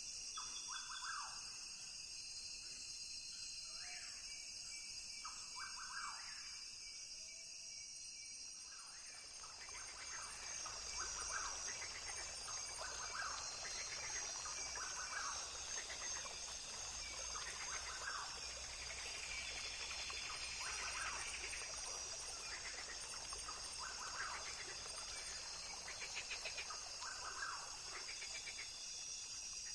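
Rainforest ambience: a steady high insect drone, with short animal calls repeating every second or two. A wider hiss swells in about a third of the way through.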